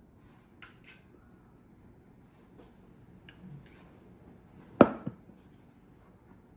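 A few light clicks and taps of kitchen handling while silken tofu is scooped into a cup, then a sharp knock about five seconds in, followed by a smaller one, as the filled cup is set down on the wooden counter.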